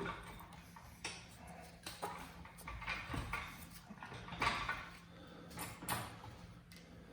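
Scattered knocks and scrapes at irregular intervals as a Volkswagen transmission on a jack is tilted and nudged against the engine to line it up for mating.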